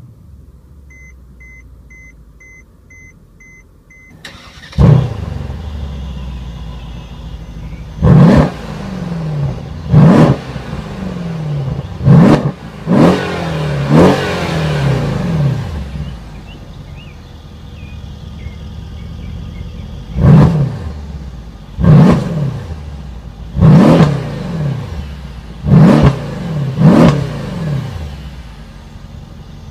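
A quick run of electronic beeps, then the Mercedes-AMG E63 S's 5.5-litre bi-turbo V8 starts with a loud flare about five seconds in and settles to idle. It is then revved about ten times in two bursts, each rev falling quickly back to idle.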